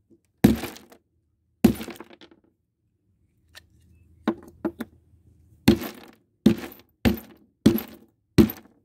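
Claw hammer smashing into the shards of a broken glass jar: sharp cracks with glass clinking. There are two blows, a pause with three light taps, then five blows in quick succession, about one every two-thirds of a second.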